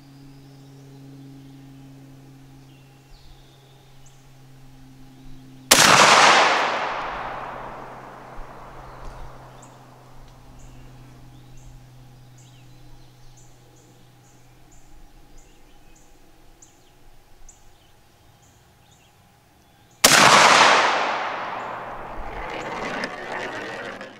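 Two shots from a Stoeger M3500 12-gauge semi-automatic shotgun firing Winchester Super X rifled slugs, about fourteen seconds apart. Each is a sharp report followed by an echo that fades over a few seconds.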